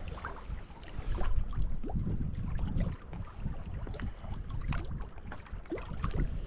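Gusty wind buffeting the microphone as a low rumble that swells and eases, over small waves lapping against a rocky shoreline.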